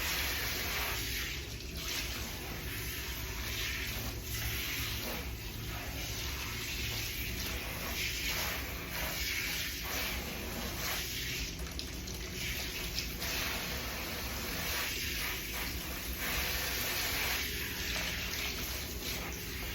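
Water running from a salon shampoo-bowl sprayer while hair is rinsed, a steady splashing hiss that swells and dips as the spray moves over the head.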